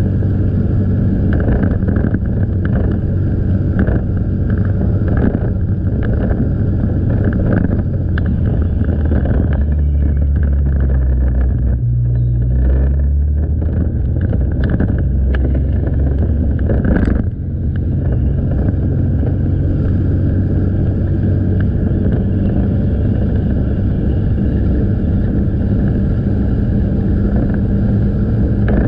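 Motorcycle engine running steadily while riding, with road noise; the engine note drops for a moment about twelve seconds in, and there is a brief break in the sound about seventeen seconds in.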